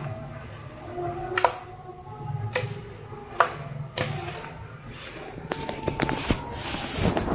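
Handmade slime being squeezed and poked: a few single sharp popping clicks about a second apart, then a run of quick crackling squishes near the end.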